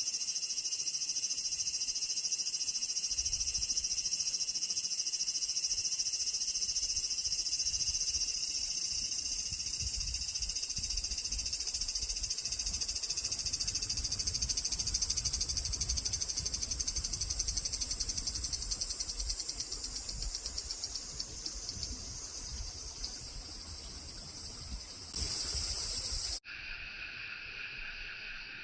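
Large brown cicada (aburazemi) singing a long, continuous sizzling buzz. It holds steady, then slowly fades, swells briefly and cuts off suddenly near the end. A quieter, lower-pitched buzz follows.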